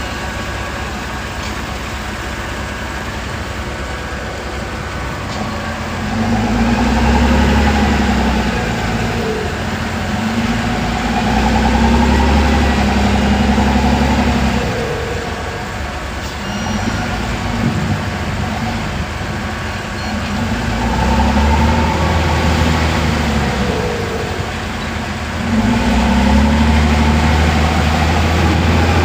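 Heavy diesel engine running, then rising in level and pitch under load four times, each surge held a few seconds before easing back.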